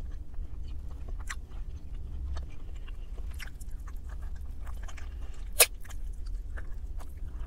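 Close-up mouth sounds of someone chewing and gnawing roasted chicken off the bone, with many small wet clicks and one sharper, louder click about five and a half seconds in. A low steady hum runs underneath.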